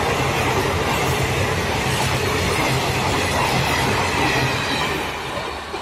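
Passenger train coaches rushing past at speed, a loud, steady noise of wheels running on the rails, which begins to fade near the end as the last coaches go by.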